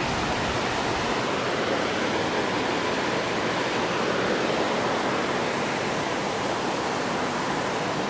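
Creek water rushing over a cascade, a steady, even rush.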